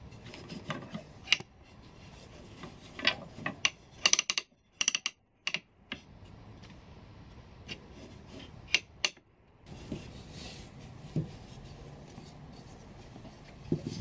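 Irregular wooden clicks, knocks and light rubbing as the wooden parts of a home-made rigid heddle loom are handled and adjusted by hand.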